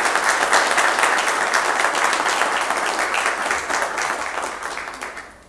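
Audience applauding, many people clapping together, dying away near the end.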